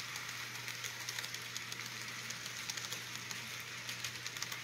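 Model passenger train rolling past on the layout track: a run of small, irregular clicks from the wheels over the rail, over a steady low hum.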